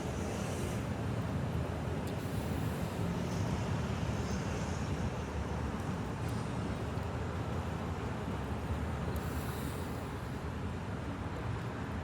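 Steady low rumble of vehicle and traffic noise, with faint soft mouth sounds of someone chewing fried chicken off the bone.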